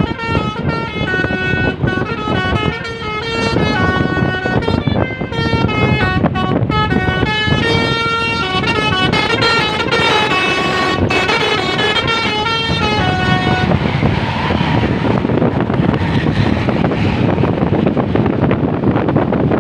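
Basuri (telolet) multi-tone bus horn, played by hand like a melodica, playing a quick melody note by note; the tune stops about 14 seconds in, leaving a steady rushing noise.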